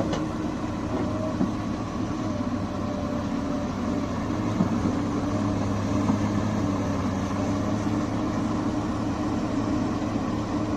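Diesel engine of an earthmoving machine (backhoe loader or excavator type) running steadily. There are a couple of sharp knocks near the start, and the engine note shifts slightly about four seconds in.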